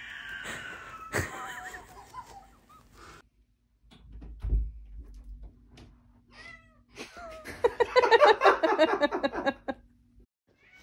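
A cat wailing and meowing in long, drawn-out calls that bend up and down, then a low thud about halfway through. Short meows follow, and near the end comes a loud run of quick, choppy sounds.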